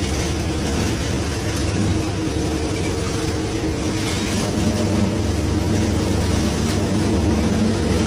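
A fishing boat's engine running with a steady low drone, with faint clatter of scallop shells being raked on the deck.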